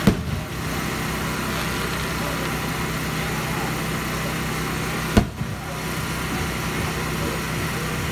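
Aerial fireworks: a sharp bang at the start and another about five seconds in, over a steady low hum.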